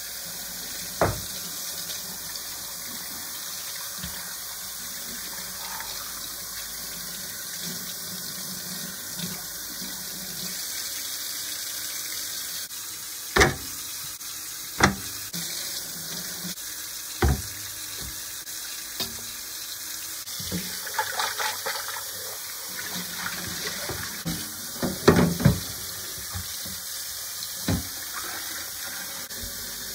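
Kitchen tap running steadily into a stainless steel sink and pot while raw tuna pieces are rinsed by hand, with splashing. A few sharp knocks and clatters stand out, the loudest cluster about 25 seconds in.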